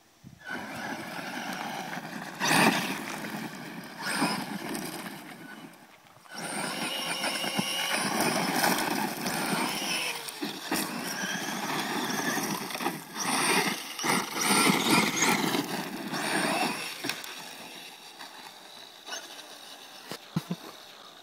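Brushless electric RC monster truck (Traxxas E-Maxx) driving hard on gravel: a high motor whine rising and falling with the throttle over tyres crunching and throwing gravel. The whine breaks off for moments a few times, and there are several sharp knocks. After about 17 s it dies down, leaving a few faint crunches.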